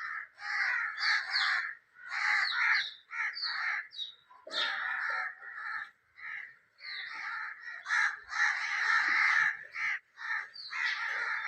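A flock of birds giving harsh, cawing calls, many overlapping in quick bursts with only brief pauses.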